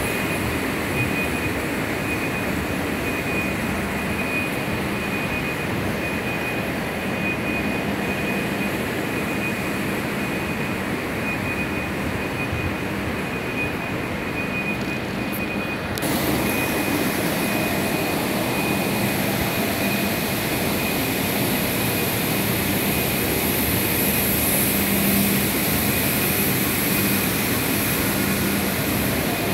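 Steady background noise of a large factory hall: a mechanical rush with a low hum and a thin, high steady whine. About 16 seconds in, the hiss turns brighter and slightly louder.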